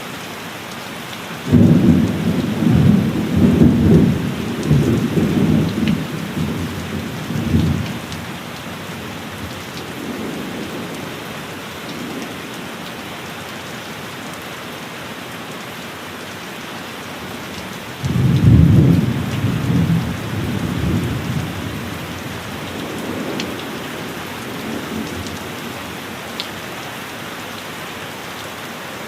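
Steady heavy rain hissing on a cabin roof, with two rolls of thunder: one breaks about a second and a half in and rumbles on for several seconds, another breaks about eighteen seconds in and dies away more quickly.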